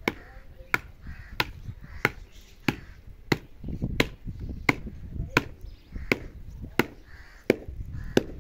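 A long wooden pole beating a heap of dry clay soil to break up the clods: a steady run of sharp thuds, about three strikes every two seconds.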